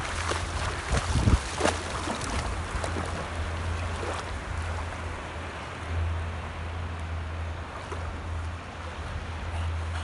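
English bulldogs wading through shallow seawater, with short splashes in the first two seconds and again around four seconds in. Gentle sea lapping and a steady low wind rumble on the microphone run underneath.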